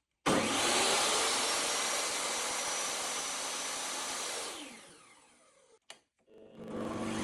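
DeWalt DW7492 table saw running at full speed. About four seconds in it is switched off and winds down, its pitch falling. After a click it starts again and builds back up to speed near the end.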